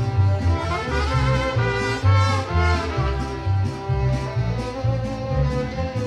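Mariachi music: violins playing a melody with vibrato over strummed guitars and a steady plucked bass beat.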